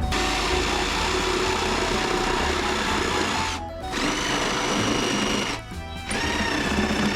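Bosch 18V cordless jigsaw cutting wood with a steady buzz, stopping briefly about halfway and again near the end. Background music plays throughout.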